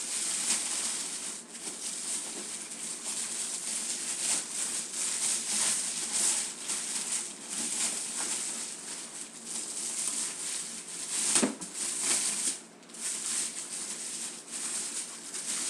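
Plastic wrapping crinkling and rustling continuously as a new flat-screen TV is pulled out of its protective bag, with a louder bump about eleven seconds in.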